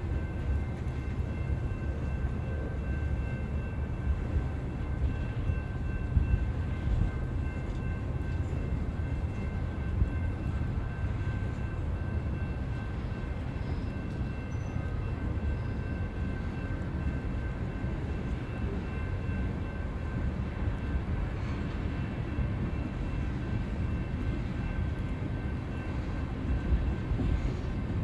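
Railroad train rolling past: a steady low rumble of cars on the rails, with a faint steady high whine above it.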